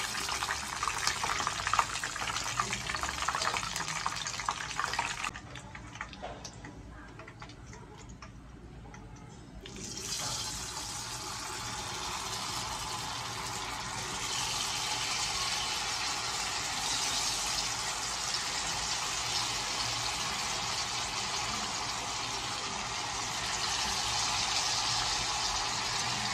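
Hot oil sizzling and crackling in a wok as chicken deep-fries. The sound drops away for a few seconds, then the sizzling comes back and grows louder as battered tofu and tempeh pieces are dropped into the oil.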